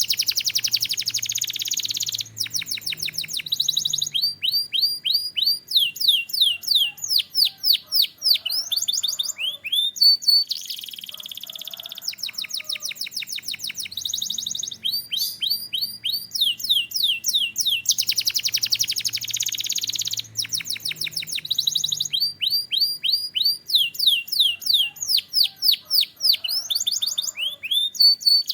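Domestic canary singing a long, high-pitched song of back-to-back phrases: fast rolling trills, rapid repeated rising and falling whistled notes, and buzzy rattles, with brief pauses between phrases.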